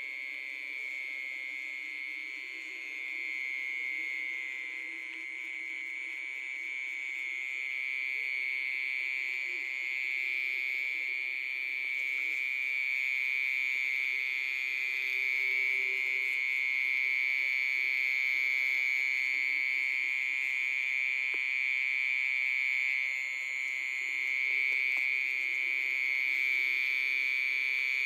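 A small animal's continuous high-pitched trilling call, held at one steady pitch without a break and growing slowly louder.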